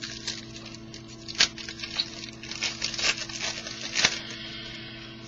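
Trading cards being handled: a run of small clicks, flicks and rustles as cards and packaging are sorted, with the sharpest clicks about one and a half seconds and four seconds in. A steady electrical hum runs underneath.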